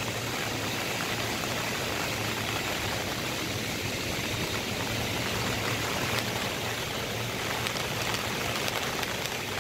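Flash-flood water rushing and churning through a ditch, with rain falling. A steady low hum runs underneath.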